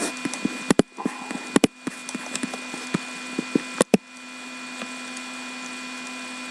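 A string of sharp clicks and taps, several in quick pairs, like small objects or a mouse and keyboard handled on a desk; about four seconds in they stop and a steady whir takes over.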